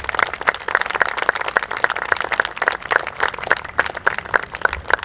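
An audience applauding: many people clapping hands in a dense, steady patter.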